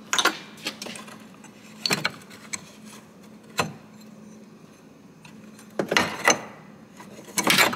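Scattered clicks and knocks of hard plastic and metal, about half a dozen spread out with a cluster near the end, as a car's hood latch assembly is worked loose by hand and pulled out from behind the grille.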